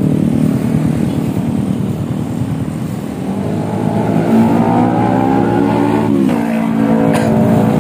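Yamaha XMAX 250 scooter's single-cylinder engine running through its stock muffler, drilled out inside and fitted with a new stainless slip-on header pipe. It idles at first; about three seconds in the throttle is opened and the revs climb steadily for about three seconds, then drop back to idle. The exhaust note stays mellow even with the muffler opened up.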